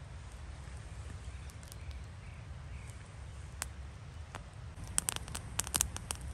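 Campfire of small split logs crackling and popping as it catches, in sharp clicks that start about five seconds in and come thick and fast near the end. Before that only a low steady rumble, with a few faint bird calls around two seconds in.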